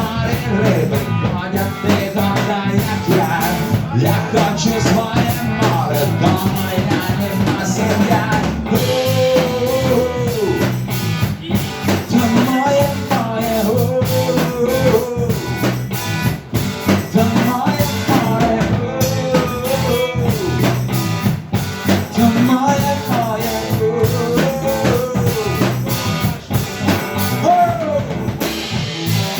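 Rock music with drums and guitars, an instrumental break between verses of a song. A lead melody line rises and falls in arching phrases about every four seconds.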